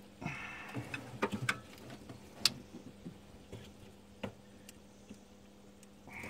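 A spanner working a fitting on the back of the alternator on a Nissan TD42 diesel makes irregular light metallic clicks and taps. The loudest tap comes about two and a half seconds in.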